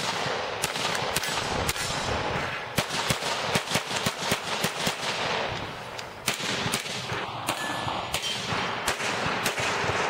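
Glock pistol firing rapid strings of shots, several a second, each a sharp crack, with a short lull about six seconds in.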